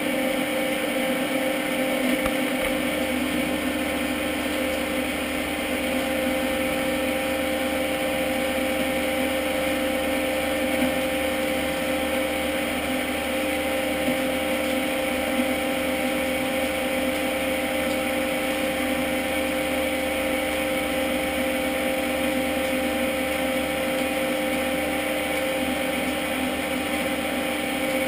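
Metal lathe running steadily, its motor and gearing giving a constant hum with a few clear steady tones, while the bore of a steel boss is machined out to size.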